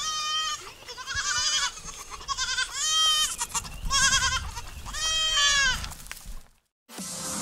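Goat bleating again and again, about one high-pitched bleat a second, each rising and falling in pitch, until the bleats stop shortly before the end.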